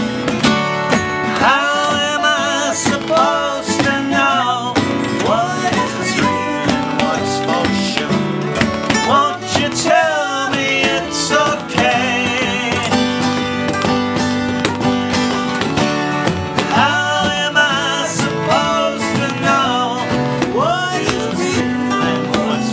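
Several acoustic guitars playing a song together, plucked and strummed, with a lead melody line that slides up and down in pitch.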